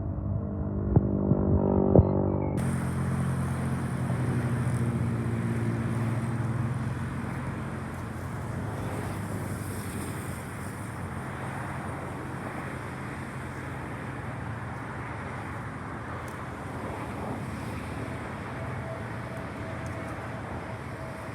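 Jet aircraft engines at an airport. The sound starts muffled, with a low drone and a few knocks, then changes abruptly about two and a half seconds in to a loud, full rush. The low drone fades by about eight seconds in and gives way to a steady, quieter roar.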